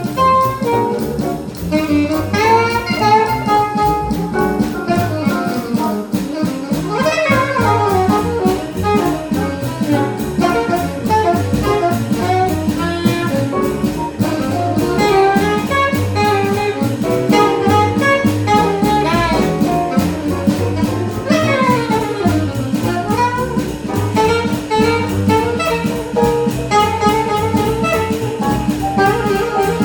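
Live bebop jazz: a horn solos in fast, running lines over upright bass and drum kit, with quick falling runs about a quarter of the way in and again past the two-thirds mark.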